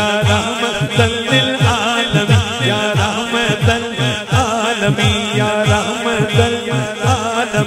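A man singing a naat into a microphone, in a wavering, ornamented voice, over a steady low beat of about three strokes a second.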